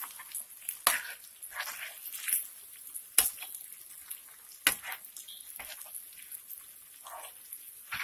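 Chorizo and beans sizzling in a nonstick frying pan while a metal spoon stirs them, with several sharp knocks of the spoon against the pan, the loudest about a second in, around three seconds and near five seconds.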